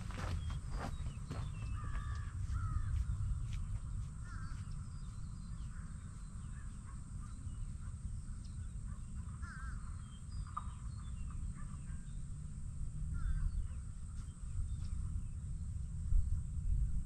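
Birds calling on and off over a low, steady rumble.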